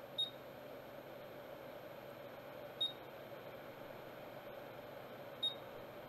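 Hot air rework station blowing steadily onto a circuit-board fuse to melt its solder, a low steady hum and hiss. Three short, high beeps sound about two and a half seconds apart.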